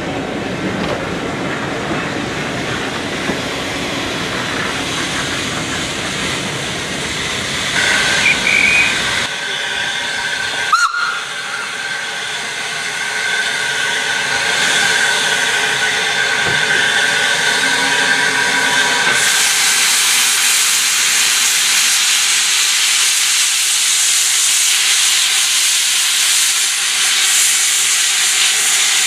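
Vintage railway carriages rolling slowly past. About a quarter of the way in a short steam whistle sounds. Then a standing Hunslet 0-6-0 saddle-tank steam locomotive hisses steadily, and from about two-thirds through the hiss grows louder as steam blows from its open cylinder drain cocks.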